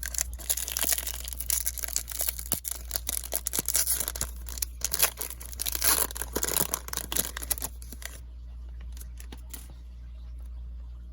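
Topps Chrome card pack wrapper being torn open and crinkled, a dense crackling that stops about eight seconds in. A few faint clicks follow.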